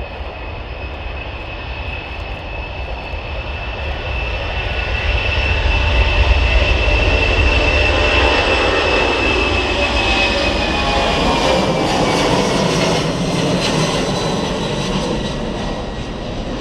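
Boeing C-17A Globemaster III's four Pratt & Whitney F117 turbofans at departure power, passing by. The jet noise swells to a peak and then eases off, and a high whine drops slightly in pitch as the aircraft draws away.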